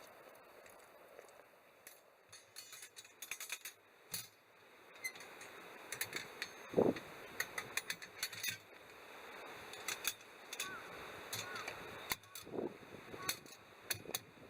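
Wood cracking and snapping in irregular clusters of sharp cracks, with a couple of louder knocks.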